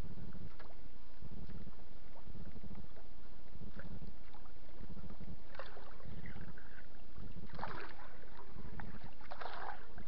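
Lake water lapping against the side of a small boat in a steady low rhythm, with three louder splashes in the second half.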